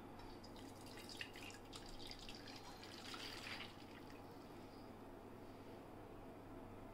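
Thick kharvas batter of raw buffalo colostrum and jaggery being poured from one steel pot into a steel pressure-cooker container: faint liquid splashing and trickling, fading after about four seconds.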